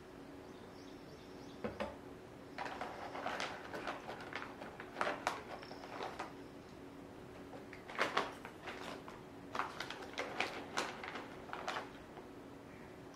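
Foil-lined plastic snack pouch crinkling and rustling in irregular bursts as it is picked up and turned in the hands.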